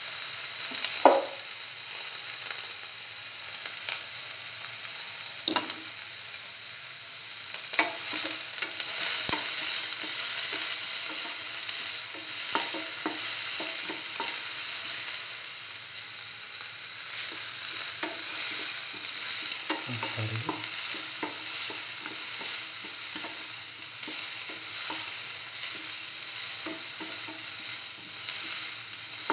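Shallots sizzling steadily as they sauté in hot oil in a pan. The stirring utensil scrapes and knocks against the pan in short clicks, with a sharper knock about a second in.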